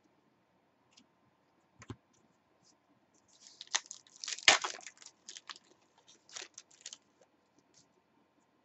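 A stack of trading cards being handled and flicked through by hand: a couple of soft clicks, then a run of crisp rustling and snapping of card edges from about three to seven seconds in, loudest around the middle.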